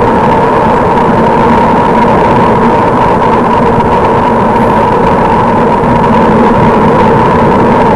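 Loud, steady rushing of wind and road noise from travelling at speed, with a constant hum underneath.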